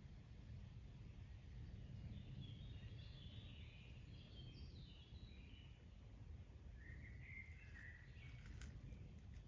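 Faint distant birds chirping in short scattered phrases, about two seconds in and again near the end, over a low steady forest ambience rumble. A couple of faint clicks come just before the end.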